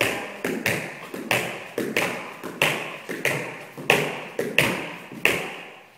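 Tap shoes striking the floor as a dancer performs a tap combination: a sharp tap about every two-thirds of a second, with lighter taps in between, in a steady rhythm that stops shortly before the end.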